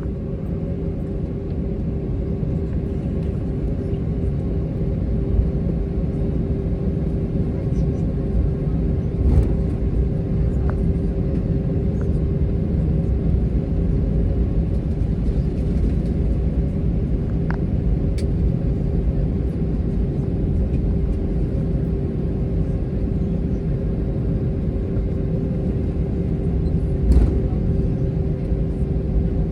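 IAE V2500 engines of an Airbus A321 heard from the cabin, running steadily with a constant hum over a low rumble. A couple of thumps come about nine seconds in and again near the end.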